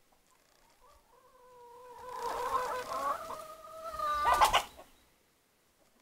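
Rooster crowing: one long drawn-out call that swells in strength, holds for about three seconds and breaks off in a loud, rough burst near the end.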